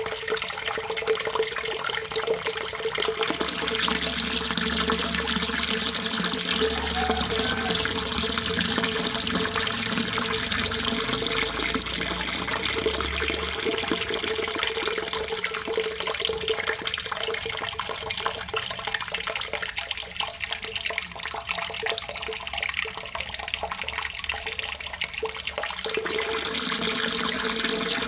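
Water running and splashing steadily in a continuous rush, with a steady low hum underneath.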